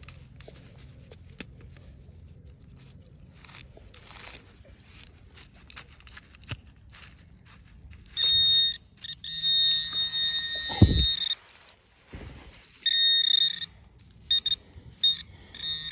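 A hand-held metal-detecting pinpointer held in loose soil sounds a steady high electronic tone for about three seconds, again briefly, then in several short beeps. This signals metal close to its tip. Before it, soft scrapes and clicks of soil being dug, and one short low falling sound partway through the tone.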